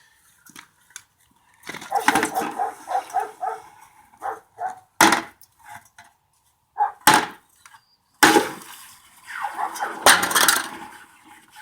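A crucible being knocked and tapped to dump out metal that has set up inside it: a quick run of ringing taps about two seconds in, then several sharp knocks and a longer clatter near the end.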